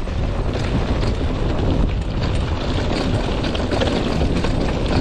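Wind rushing over the microphone with a low rumble and a dense clatter of gravel and rattling parts, from a bike moving down a rough dirt track.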